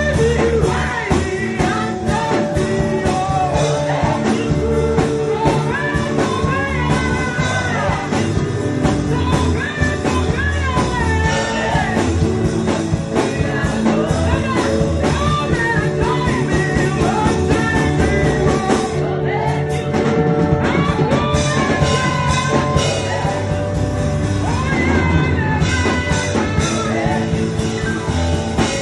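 Worship music: a singing voice over a full band accompaniment with a steady beat.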